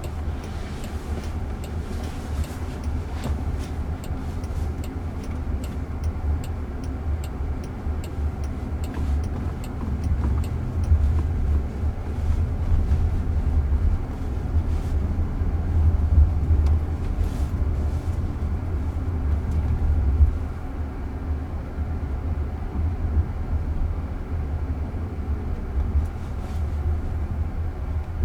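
Low, steady road and tyre rumble inside the cabin of a moving car, with a few faint ticks.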